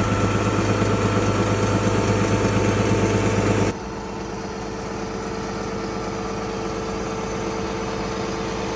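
Small Ford tractor's engine running steadily while driving a land-drain jetter. A little under four seconds in, the sound drops abruptly to a quieter steady hum with a thin, even whine.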